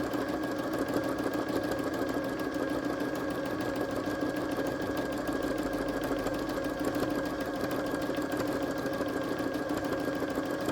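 Janome M100 QDC sewing machine running steadily, stitching continuously in free-motion mode with the darning foot and feed dogs lowered to fill in an area of fabric.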